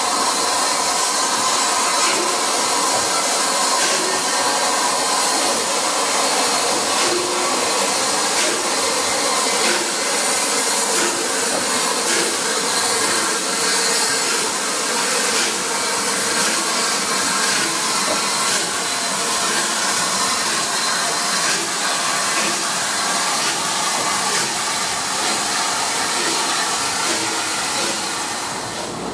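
Steam locomotive 34053 'Sir Keith Park', a rebuilt Bulleid Battle of Britain class Pacific, moving slowly past with a loud, steady hiss of steam and soft exhaust beats now and then.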